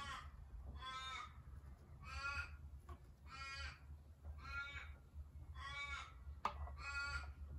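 A crow cawing over and over, one harsh call about every second, with a single sharp click about six and a half seconds in.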